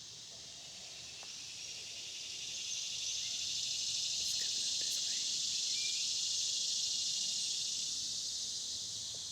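Cicadas buzzing: a shrill, pulsing drone that swells to loud in the middle and eases off near the end.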